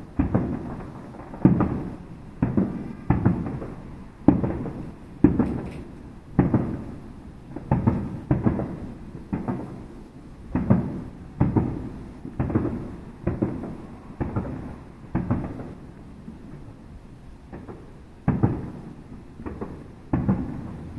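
Aerial firework shells bursting in quick succession, deep booms each trailing off in a rumble, some overlapping. The bursts pause briefly about three-quarters of the way through, then start again.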